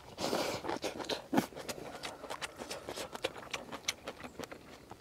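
A person eating rice with chopsticks from a ceramic bowl: a short shovelling noise at the start, then close chewing with many small clicks and smacks.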